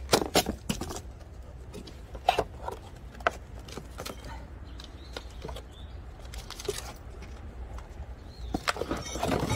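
Cardboard and styrofoam battery packaging being handled and opened: scattered sharp knocks and rustles, busiest in the first second and again near the end as the boxed car battery is pulled out, over a low steady hum.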